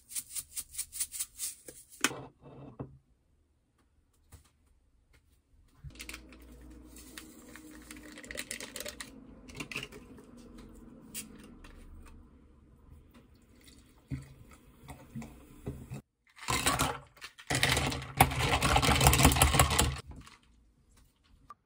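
A seasoning shaker of sesame seeds rattled in quick shakes over grilled meat, then water poured into a glass. Near the end, the loudest part: ice cubes clattering into the glass from tongs.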